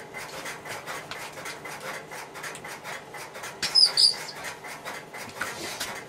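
Scratchy rustling and rubbing of a 25-pair telephone cable's plastic jacket being worked up over its wires, with a couple of short high squeaks about four seconds in.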